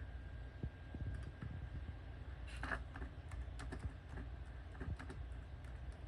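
Typing on a keyboard: irregular key clicks, with a steady low hum underneath.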